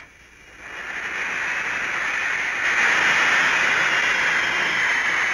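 Jet aircraft engines running: a steady rushing roar with a faint high whine, fading in over the first second and growing a little louder about halfway through.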